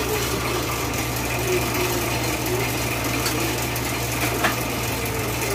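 Steady low hum of a bakery machine's electric motor running, with no change in pitch or level.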